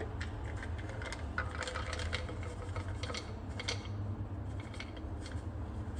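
Plastic vitamin container being handled and opened: irregular small clicks and rattles, over a steady low hum.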